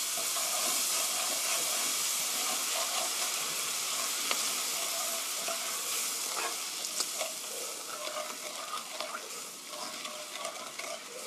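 Cold milk poured into a hot frying pan of sautéed onion, garlic, carrot and browned flour, sizzling, while a wooden spatula stirs through it. The sizzle fades over the second half, leaving separate scrapes of the spatula against the pan.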